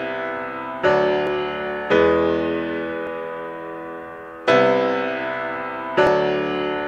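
Background piano music: four slow chords, each struck sharply and left to ring out and fade.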